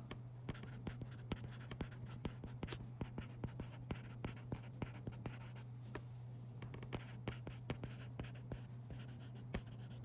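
Stylus tip tapping and scraping on a tablet's glass screen during handwriting: a quick, irregular run of small clicks, over a steady low hum.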